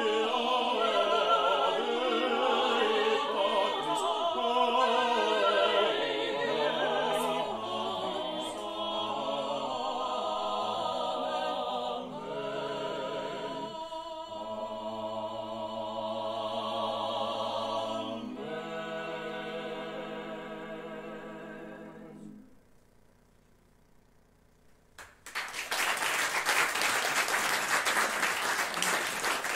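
Small mixed-voice vocal ensemble singing a cappella, closing a Latin sacred piece on long held chords that stop about three quarters of the way through. After a short silence the audience applauds.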